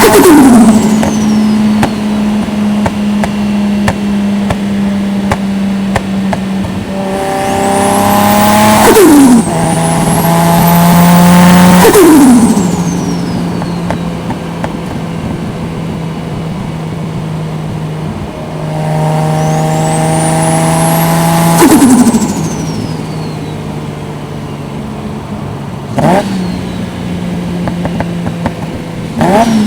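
Toyota 1JZ-GTE VVT-i turbocharged 2.5-litre straight-six cruising at highway speed, with three short pulls. On each pull the engine note and a high turbo whistle climb. When the throttle snaps shut, the whistle drops away with a fluttering compressor surge.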